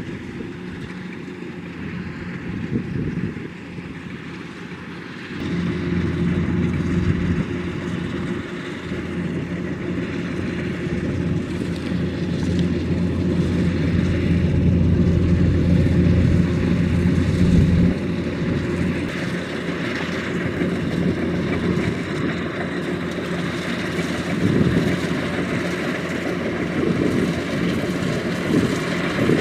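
Kubota DC-105X combine harvester's diesel engine running steadily. It gets louder about five seconds in, and a deeper low hum drops away around eighteen seconds.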